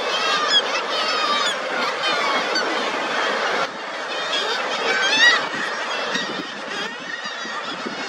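Seabird colony din: many overlapping calls from kittiwakes and guillemots nesting on the cliff ledges. The level drops suddenly a little before halfway, and one louder call stands out about five seconds in.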